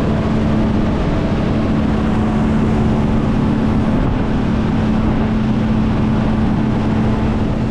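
A 300 hp outboard motor running at a steady cruising speed with an even hum, while the boat planes over the water, over a dense rush of water and wind.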